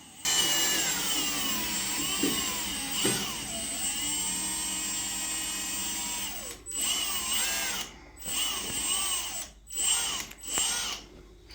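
Power drill run in reverse to back out the screws of the fridge's hinge brackets. The motor whines for about six seconds, its pitch dipping and recovering under load, then comes four short bursts.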